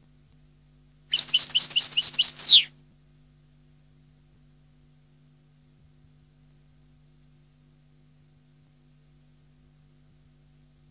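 European goldfinch singing one short phrase about a second in: a quick run of about seven repeated high notes ending in a falling note, about a second and a half long.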